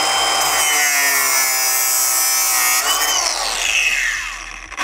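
Cordless power tool's motor whining steadily at speed while undoing the gearbox oil cooler line fittings. Its pitch dips and recovers about three seconds in, then it winds down near the end.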